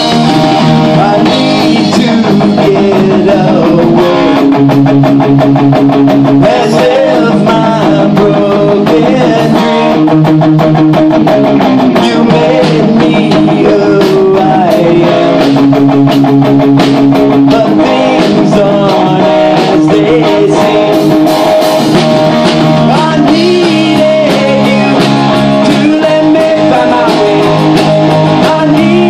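A rock band playing live and loud: electric guitar through an amplifier, bass guitar and drum kit, with held chords changing every second or two.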